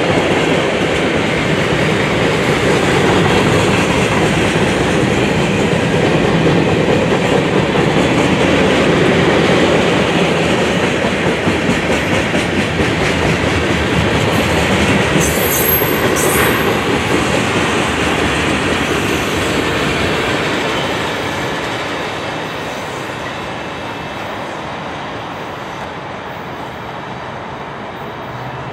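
Freight train cars rolling past: steel wheels clattering over the rail joints in a steady rumble, with a brief high squeal about halfway through. The rumble fades over the last several seconds.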